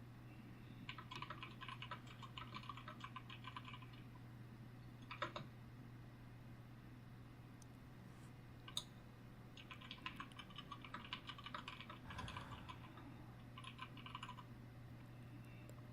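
Typing on a computer keyboard in short runs of rapid key clicks, with pauses and a few single key presses between them. A steady low hum runs underneath.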